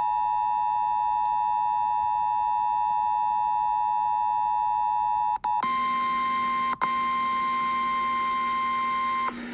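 Emergency alert attention tone: a loud, steady tone that breaks off about five and a half seconds in. It is followed almost at once by a slightly higher steady alert tone that runs until just before the end, with one very brief dropout in the middle.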